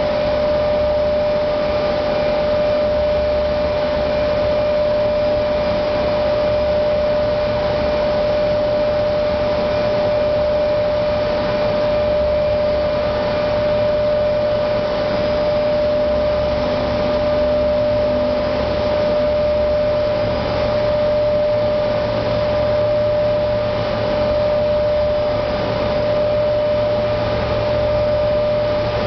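Industrial quench tank running with its water agitated: a steady rush of churning water under a constant machine whine and low hum.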